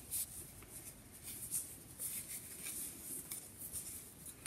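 Faint rustling and scraping of chunky wool yarn drawn over wooden knitting needles as stitches are purled, with a few soft ticks of the needles.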